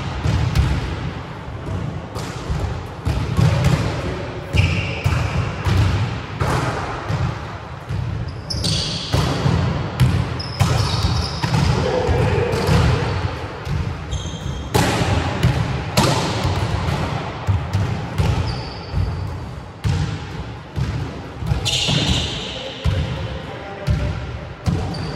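Volleyballs being struck by hands and bouncing on a wooden sports-hall floor: an irregular scatter of sharp thuds and slaps, echoing in the large hall, with a few short high squeaks.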